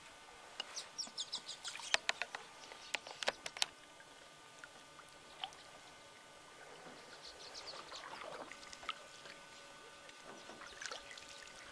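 Canoe paddling: water dripping and trickling off the paddle in runs of quick high drops, with a cluster of sharp clicks about two to four seconds in.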